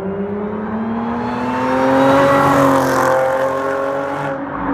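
Supercharged 3.0-litre V6 of a 2014 Audi S4 with an AWE Touring exhaust, accelerating hard past. The exhaust note rises in pitch, is loudest about two to three seconds in, then levels and fades as the car pulls away.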